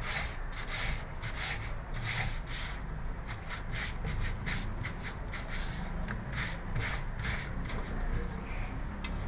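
Wooden scrubbing brush scrubbed back and forth over soapy wet denim jeans spread on the floor, during hand-washing of clothes. It goes in quick, even strokes, about three a second.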